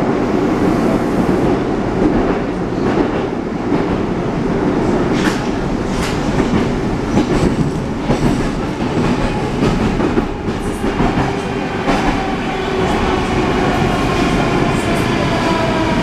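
Rusich 81-740/741 metro train running through a tunnel, heard from inside the car: a steady loud rumble with the clatter of the wheels over rail joints. In the last few seconds an electric whine of the traction drive comes in as the train slows into a station.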